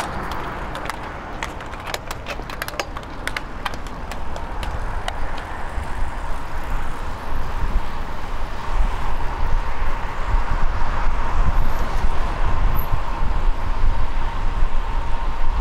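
Wind rushing over the microphone of a cyclist riding a fixed-gear bicycle: a deep, steady rumble that grows louder through the second half, with a run of sharp clicks in the first five seconds.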